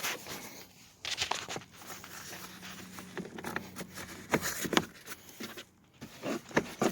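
Scattered plastic knocks and clicks as the front interior door panel of a Subaru Impreza is pulled and worked up off the door. The panel is stuck because one push-clip is still holding it.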